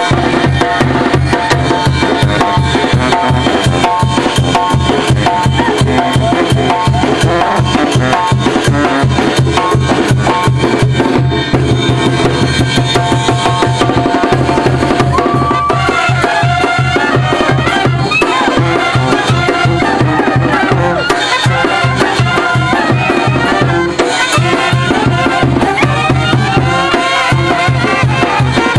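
Live street brass band playing loudly: sousaphone and bass drum keep a steady low beat under trumpets, with snare drum and cymbal.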